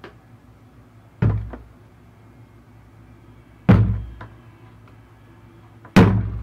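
Three loud, heavy thuds about two and a half seconds apart, each dying away over about half a second.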